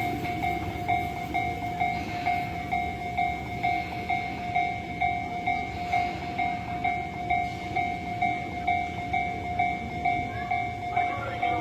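Japanese level-crossing warning alarm ringing its electronic ding over and over, about two and a half strikes a second, over the low rumble of a passing train: the crossing is closed.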